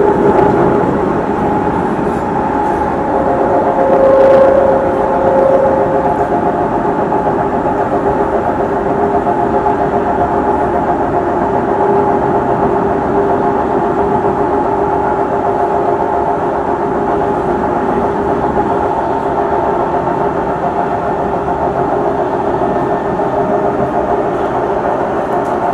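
Singapore MRT train running at speed on elevated track, heard from inside the carriage: a steady motor whine in several tones over the rumble of wheels on rail, with a brief louder whine about four seconds in.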